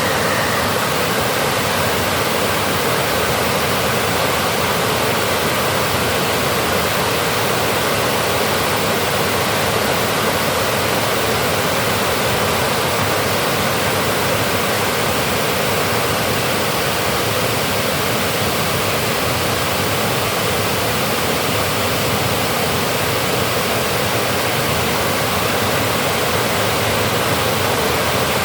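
Water pouring from a dam: a steady, loud rushing.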